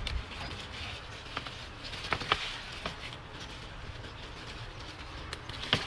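Sweet potato vine tips being pinched off by hand, leaves rustling, with a few sharp snaps of the stems about two seconds in and again near the end.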